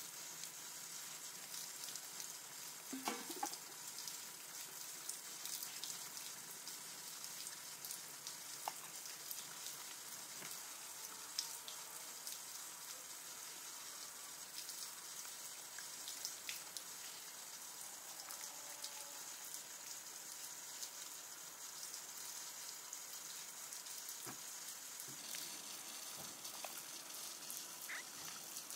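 Faint steady hiss, with a few light clinks and knocks of glass jars and a pot being handled.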